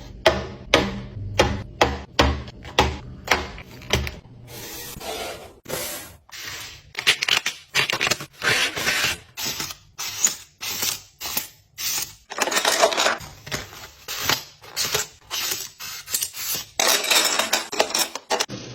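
Containers and packaging being handled: a long run of sharp clicks, taps and rustles, with some longer scraping or rustling stretches, and a low hum during the first few seconds.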